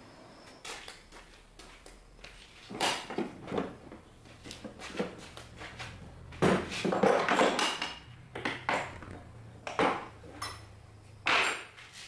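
Irregular metallic clinks, knocks and clattering of tools and metal parts being handled, busiest about halfway through. A low steady hum comes in about a third of the way in.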